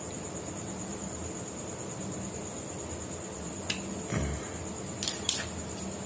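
Three sharp clicks in the second half from bypass pruning shears snipping an adenium stem tip. Under them runs a steady high trill of crickets and a low hum.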